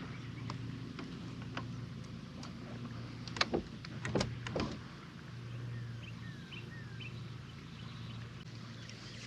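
A boat's motor hums low and steady on the water. A few sharp knocks sound in the middle, and a bird gives a few faint short chirps near the end.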